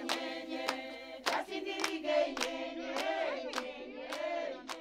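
A group of voices singing together in chorus, accompanied by a steady hand clap about every half second.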